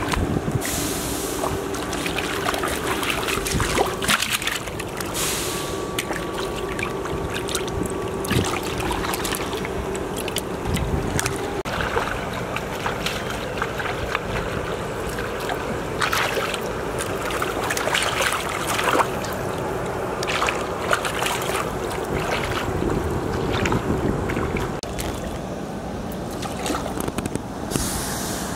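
Shallow muddy water sloshing and splashing as a person wades barefoot and gropes by hand for fish, with sharp splashes at irregular moments.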